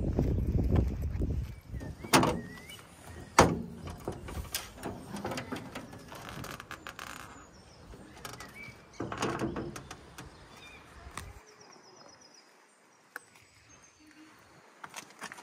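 The metal bonnet of a 1948 MG TC being unlatched and lifted open. There are two sharp knocks a few seconds in, then scattered clicks and a rattling clatter about nine seconds in as the side panel swings up.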